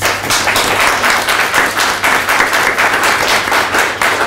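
Audience applauding. The clapping breaks out suddenly and stays dense and even.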